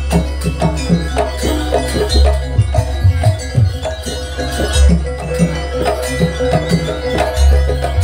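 Live jaranan music: hand drums beat a fast, busy rhythm, a deep gong stroke sounds about every two and a half seconds, and a steady tone is held over it.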